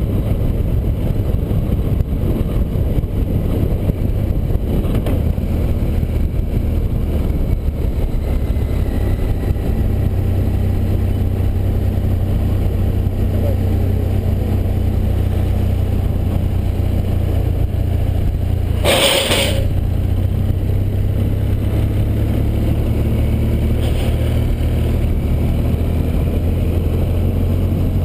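Motorcycle engine running steadily at cruising speed with wind noise, heard from a camera mounted on the bike. A short rush of noise cuts in briefly about two-thirds of the way through.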